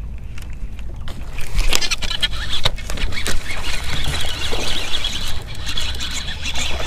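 A hooked bass splashing and thrashing at the water's surface after taking a topwater frog, starting suddenly about a second in and going on in a dense, irregular run of splashes.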